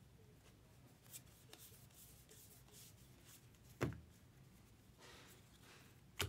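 Trading cards being handled, with faint rustles and short brushing sounds as cards slide against each other. Two sharp knocks, about four seconds in and again near the end, are the loudest sounds.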